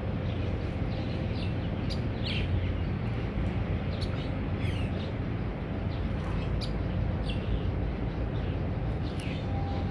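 Small birds chirping, short high calls coming every second or so, over a steady low rumble.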